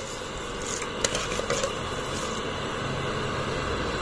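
Steel ladle stirring milk in an aluminium pot, the liquid swishing, with a few light clinks against the pot around a second in.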